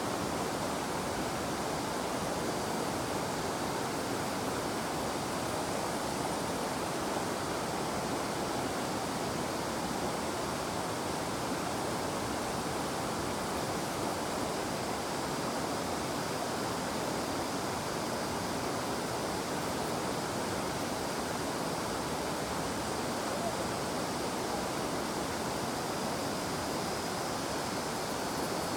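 River water flowing and rushing steadily, with cicadas giving a faint, steady high drone over it.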